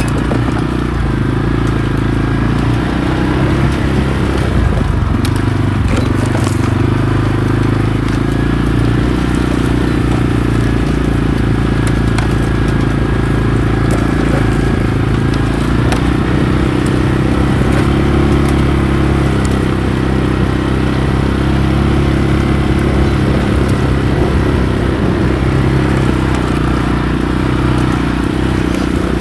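ATV engine running under way, its pitch shifting a little with the throttle, with occasional clicks and rattles from the machine over the ground.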